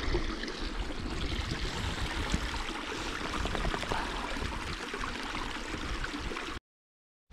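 Water trickling in a small peaty hill runnel: a steady, splashy babble that cuts off suddenly near the end.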